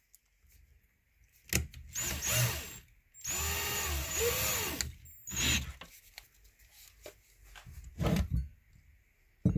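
Electric hand drill run in several short bursts, its motor speed rising and falling with the trigger, the longest burst lasting about a second and a half, as the lead plugs in a Weber IDA carburetor body are drilled out lightly.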